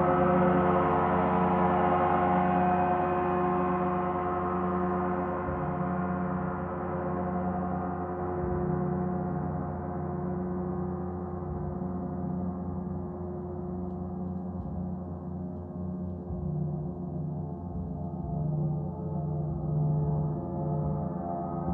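A gong ringing in a dense wash of sustained overtones, the higher ones slowly dying away, with the sound swelling again slightly near the end.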